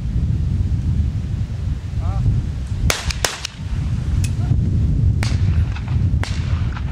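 Over-and-under trap shotguns firing: a quick run of sharp reports about three seconds in, then single shots about a second apart. A brief voice call comes just before the first shots, over a steady wind rumble on the microphone.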